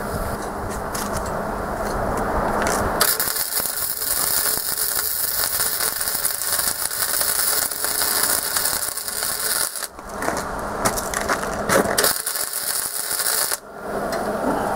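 Flux-core (self-shielded) wire-feed welder arc crackling in long runs with short breaks, as filler metal is built up to weld a nut onto a broken bolt stud.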